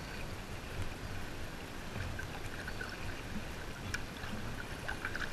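Choppy sea water lapping and splashing against the hull of a skin-on-frame kayak, a steady wash with a few light clicks of spray near the end.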